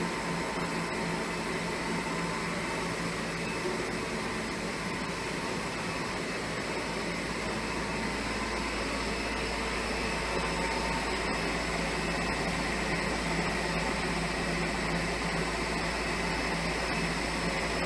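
Steady machine hum with several fixed high whining tones; a deeper rumble joins about seven seconds in.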